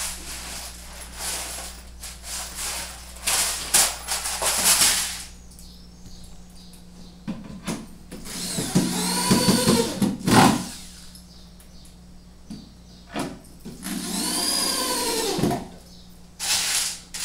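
Corded electric drill run twice, each time winding up and then down in pitch, driving into the particleboard panels of a flat-pack kitchen cabinet. Before the drill runs there are several seconds of knocking and scuffing.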